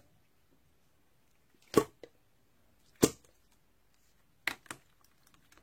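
Sharp knocks: two loud ones about a second apart, then a quieter quick double knock near the end.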